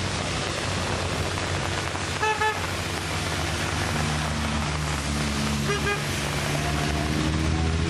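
Rally car engines running as several cars climb a wet road one behind another, over a steady hiss of tyres on wet asphalt. A car horn toots twice about two seconds in and once more briefly near six seconds.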